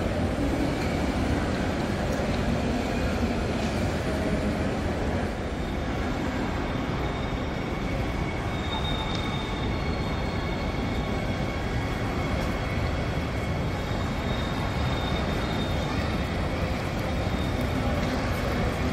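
A train running through a station: a steady low rumble of the rail cars, with faint high-pitched squeal tones that come and go.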